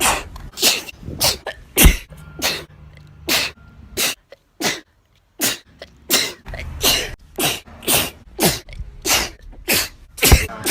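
A woman's sneezes spliced back to back, sharp and short, coming about two to three a second, with a brief pause a little before the middle.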